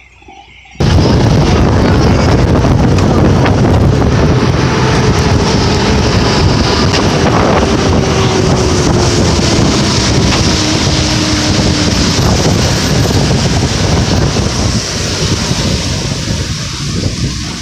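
Wind buffeting the microphone, with road noise from a moving vehicle. It starts abruptly about a second in and stays loud and steady, as if from an open window of a moving bus.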